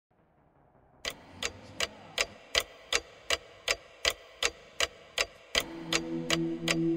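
Steady clock-like ticking, close to three ticks a second, starting about a second in. Low held tones swell in underneath about five and a half seconds in.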